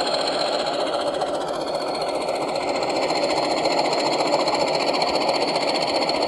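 Factory-fitted DCC sound from an Accurascale model of NIR Hunslet locomotive 103 'Merlin': the model's speaker plays a diesel engine running steadily, with a fast, even beat and a high tone over it.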